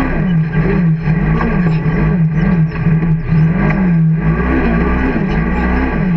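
Can-Am side-by-side's engine running hard across sand dunes, its pitch rising and falling over and over as the driver works the throttle over the crests and dips.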